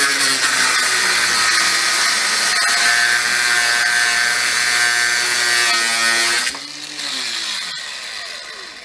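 Cordless angle grinder with a thin cut-off disc cutting through a steel bolt, running with a loud, steady whine. About six and a half seconds in it is switched off and the whine falls in pitch as the disc spins down.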